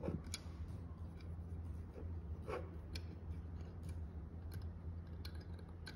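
Faint small clicks and ticks from a plastic head comb being worked onto a 2.5-inch hard drive's head stack by hand, over a low steady hum.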